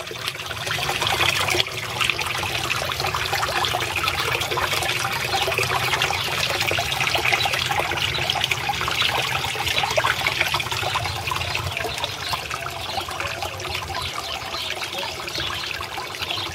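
Water pouring from a small spillway into a garden fish pond: a steady splashing trickle.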